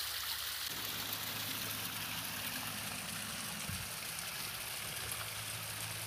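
Small seasonal waterfall trickling and splashing down a rock face into a shallow pool: a steady rush of running water.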